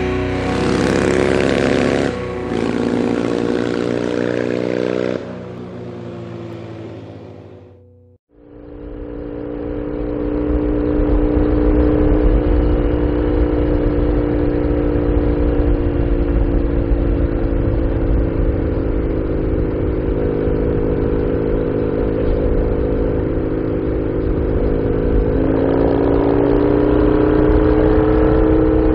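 Intro music fades out over the first eight seconds. After a short gap, the onboard sound of a Norton Commando's parallel-twin engine comes in, running steadily at cruising speed with wind rush on the microphone. The engine note rises a little near the end as the bike accelerates.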